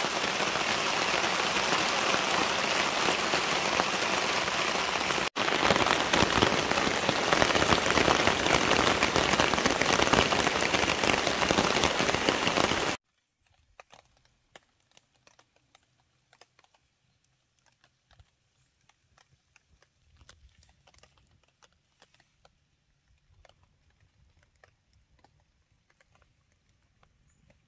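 Heavy rain pouring down, a loud steady hiss with a split-second break about five seconds in. It cuts off abruptly about halfway through, leaving near silence with faint scattered ticks.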